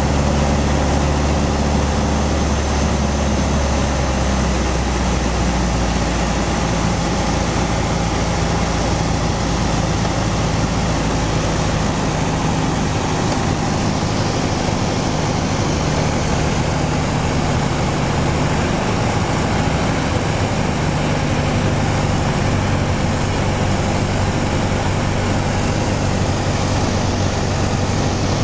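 Piper PA-28-181's four-cylinder Lycoming engine and propeller droning steadily as heard inside the cabin in flight, over a steady hiss. The low engine tone shifts in pitch about five seconds in and again around twenty seconds.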